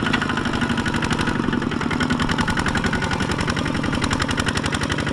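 Single-cylinder diesel engine of a small Kubota farm tractor running steadily, a fast, even chugging of separate firing pulses.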